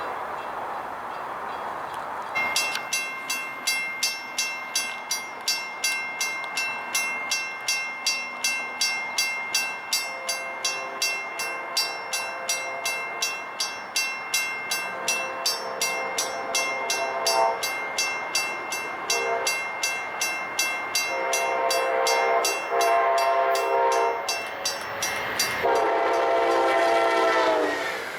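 Grade-crossing bell ringing steadily about twice a second while an approaching Amtrak train sounds its horn in the long, long, short, long crossing pattern. The last long blast drops in pitch as the locomotive passes near the end.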